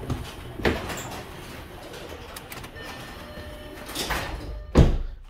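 Overhead garage door closing under its electric opener: a steady running and rattling noise with a few knocks, ending in a heavy thud as the door meets the floor near the end.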